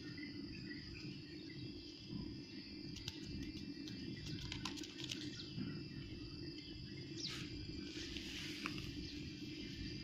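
Outdoor ambience: steady high insect chirring over a low steady rumble, with a few light clicks and a brief falling chirp about seven seconds in.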